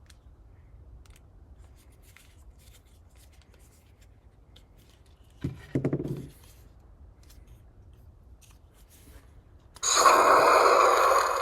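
Light clicking and handling of metal lightsaber hilt parts, with a brief louder click and short sound about halfway through. Near the end a lightsaber sound board's speaker comes on loudly with a sound font, the blade igniting into its hum.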